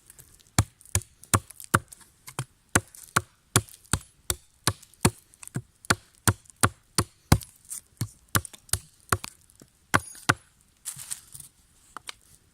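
A blade chopping into a wooden stick with rapid, regular strikes, about two to three a second, pausing briefly near the end.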